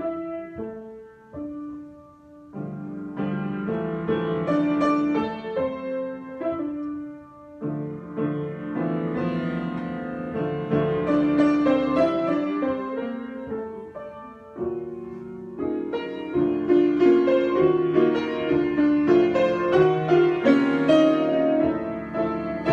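Solo piano improvisation: chords and melody in phrases, with brief lulls between them, growing fuller and louder from about two-thirds of the way through.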